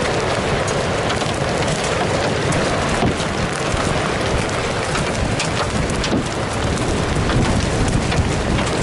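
Heavy rain and large hail hitting a pickup truck's roof and windows, heard from inside the cab, with frequent sharp hailstone strikes over a steady roar of rain.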